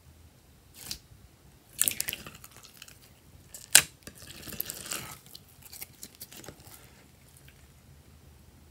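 Glossy slime being pressed, pulled and stretched by hand in a glass dish, making wet sticky popping and crackling. A cluster of pops comes about two seconds in, the sharpest single pop a little before four seconds, then a crackly stretch and fainter ticks.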